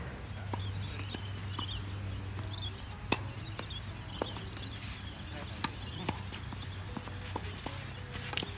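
Tennis balls struck by racquets and bouncing on the court during a doubles rally: a string of sharp pops about a second apart, the loudest about three seconds in.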